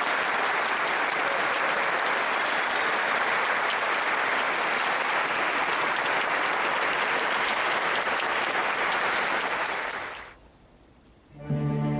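Audience applause: dense, steady clapping from many people. About ten seconds in it fades out, and just before the end music with held, sustained notes begins.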